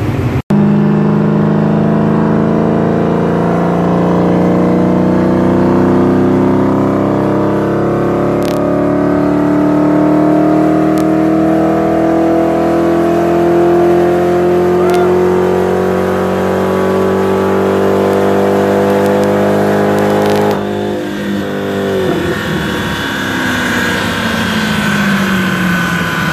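Dodge Challenger SRT's Hemi V8 making a full-throttle pull on a chassis dyno. The engine note rises steadily for about twenty seconds, then the throttle shuts suddenly at about twenty seconds in and the engine and rollers wind down in falling pitch.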